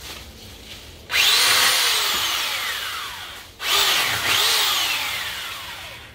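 Ozito pole hedge trimmer's motor run in two bursts, each starting suddenly and then falling away in pitch and level over a couple of seconds.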